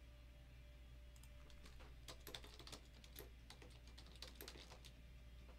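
Faint typing on a computer keyboard: quick, irregular key clicks over a low steady hum.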